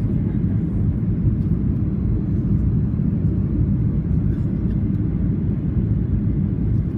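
Steady low rumble of a Boeing 737 airliner, unchanging throughout.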